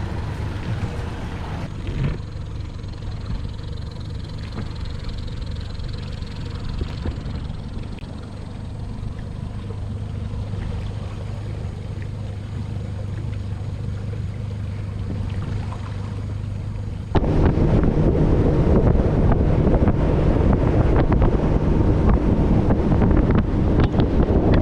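An engine runs steadily with a low hum. About two-thirds of the way through, the sound suddenly gets louder and rougher, with wind rushing over the microphone, as when a boat is moving under way.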